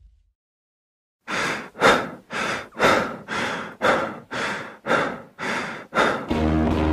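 Fast rhythmic breathing, about two breaths a second, starting after a second of silence. A low rumble fades out at the start, and near the end music with deep bass and strings comes in.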